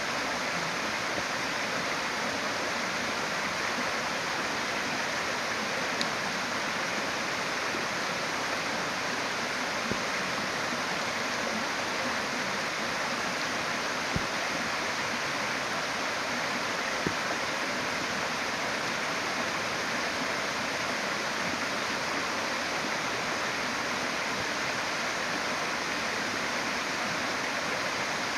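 Shallow stream flowing over rocks: a steady rushing of water, with a few faint ticks.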